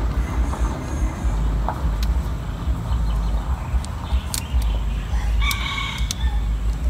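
Wind rumbling on the microphone throughout, with a few light clicks. About five and a half seconds in, a rooster crows briefly.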